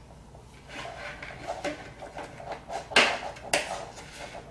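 Hands handling small parts while wires are fitted to an on-off switch: light scraping and rubbing with scattered clicks and knocks, the two sharpest close together about three seconds in.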